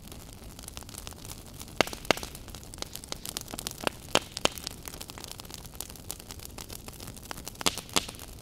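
Campfire in a metal fire basket crackling, with irregular sharp pops over a steady low hiss.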